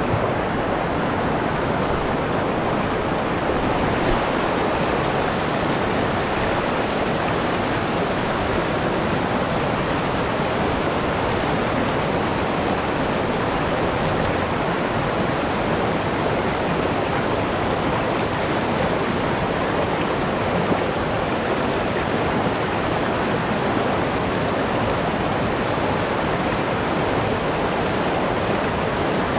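Fast creek water rushing over rocks and small rapids, a steady, unbroken sound.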